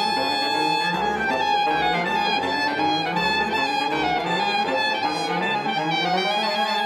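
Saxophone quartet of soprano, alto, tenor and baritone saxophones playing a contemporary chamber piece: a high note held for several seconds over moving lower parts.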